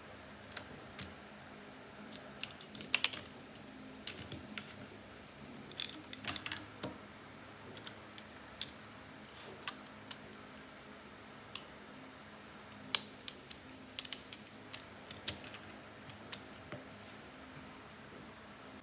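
Irregular light clicks and taps of hard parts being handled and fitted together while assembling a laptop cooling fan bracket, with a cluster of sharper clicks about three seconds in.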